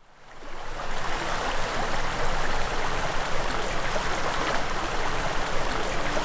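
Small shallow creek babbling over stones, a steady rushing that fades in from silence over about the first second.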